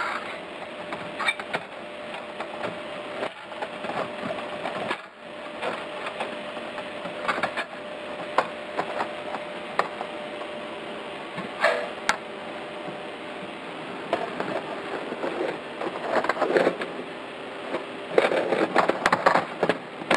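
Aluminium roller-shutter slats and metal spring clips clicking and clattering as they are handled and hooked in, over a steady hum. Near the end comes a denser rattle as the slat curtain is drawn into the shutter box.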